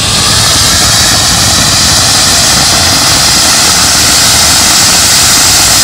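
Large anar (flower-pot fountain firework) burning, spraying a tall fountain of sparks with a loud, steady hiss.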